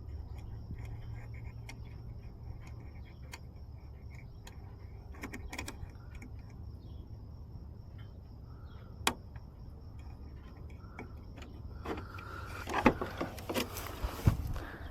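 Locksmith's lockout tools working at a car door: scattered faint clicks and taps, growing into louder clattering and knocks in the last three seconds.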